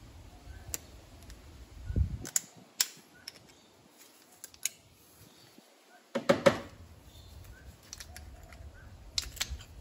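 Needle-nose pliers clicking and tapping against a Briggs & Stratton aluminium piston while the gudgeon pin is worked out to free it from the broken connecting rod. Scattered sharp metal clicks, a dull knock about two seconds in, and a quick cluster of louder clicks a little after six seconds.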